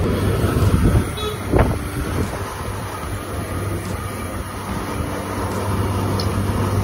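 Raw potato fingers dropped by the handful into a kadai of hot oil, the oil sizzling and bubbling hard around them, over a steady low hum. One sharp knock about one and a half seconds in.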